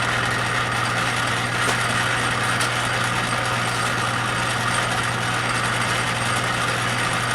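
Metal lathe's electric motor and spindle running steadily, a constant hum.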